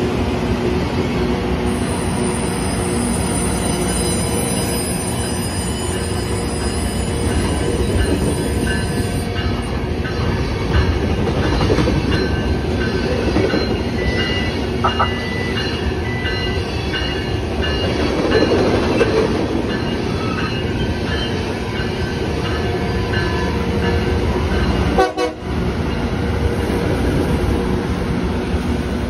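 Loram rail grinder train rolling past close by, its power cars running and its grinding stones working the rail: a steady, loud rumble and rasp with several steady whining tones over it, briefly dropping out near the end.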